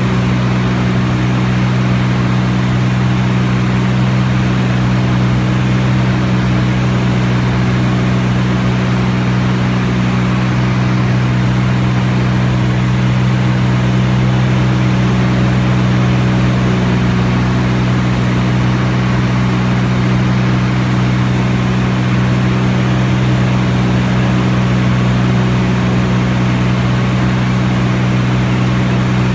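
Piston engine and propeller of a light aircraft in flight, a steady drone that holds one pitch with no change in power.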